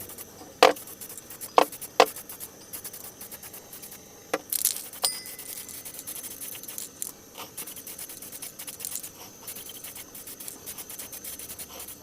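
A handful of separate light knocks and metallic clinks, from small tools or parts being handled and set down after a power tool has stopped.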